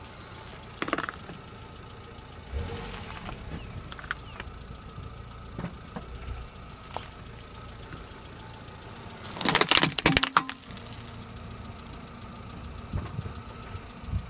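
Car tyre rolling onto a heap of green lotus seed pods on asphalt and crushing them, a burst of crunching and cracking lasting about a second, about two-thirds of the way through. The car's engine runs low and steady underneath, with a single sharp crack about a second in.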